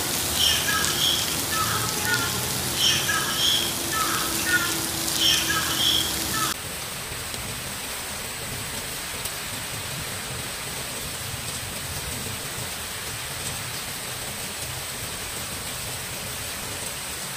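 Heavy rain pouring down in a dense, even hiss. In the first six seconds short higher sounds repeat over the rain every second or so. After that the rain alone hisses steadily.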